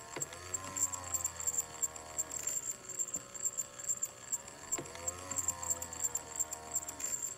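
Antique clockwork walking doll's mechanism running, with fast, steady ticking and a droning hum that rises and then falls twice, each time for about two seconds.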